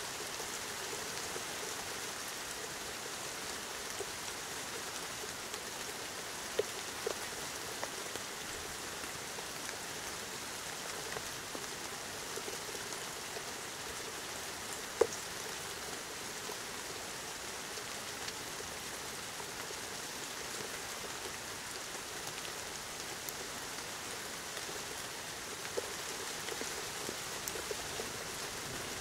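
Steady rain falling during a thunderstorm, pattering on surfaces. A few sharp single ticks stand out, the loudest about halfway through.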